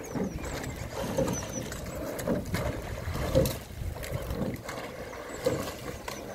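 Four-person rowing shell passing close by: oars knocking in their gates and blades catching and splashing through the water in a loose rhythm, with a few small-bird chirps.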